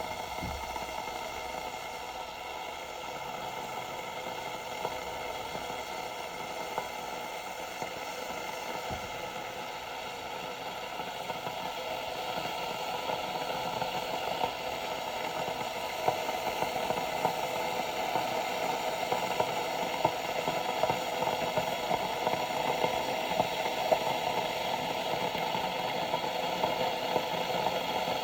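Bodum gooseneck electric kettle heating water: a steady hiss that grows gradually louder, with scattered small pops and ticks in the second half as the water heats toward the boil.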